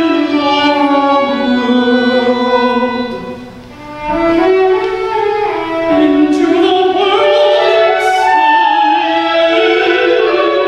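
Live classical chamber music for violin, cello and clarinet with a countertenor singing, several sustained melodic lines moving together. The music thins to a brief hush about three and a half seconds in, then the ensemble swells back in.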